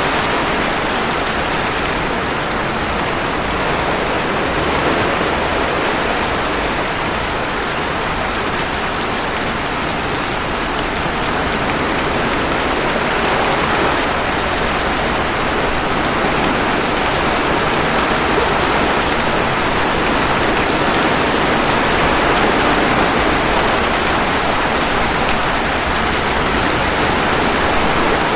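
Steady rainfall mixed with ocean waves washing ashore: a dense, even hiss of water that swells and eases gently and slowly.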